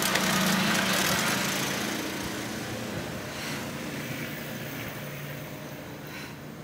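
Engine noise of a passing motor vehicle, loudest about a second in and then slowly fading away.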